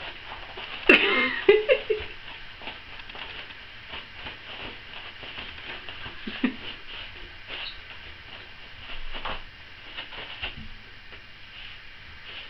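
Toilet paper rustling as a cat's paws bat and pull at a roll on its wall holder, in many short scratchy strokes. A brief voice about a second in is the loudest sound.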